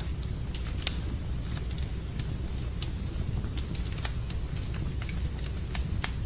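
Wood fire burning in a fireplace: a steady low rumble of the flames with irregular sharp crackles and pops from the burning logs, a few a second, the loudest about one second in.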